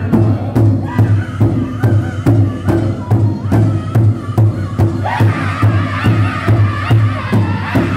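Powwow drum group singing an intertribal song: men strike a large hide drum together in a steady beat of about two to three strokes a second, under high-pitched group singing. The voices swell louder and fuller about five seconds in as more singers join.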